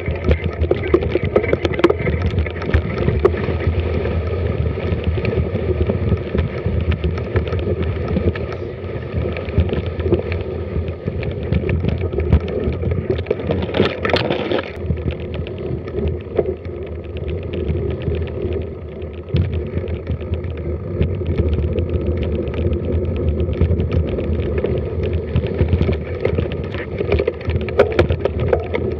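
Mountain bike rolling and rattling over a rough, wet forest trail, with constant fine clicking and a steady low rumble, as picked up by an action camera riding along on the bike or rider. About halfway through, branches brush and scrape loudly past the camera for about a second.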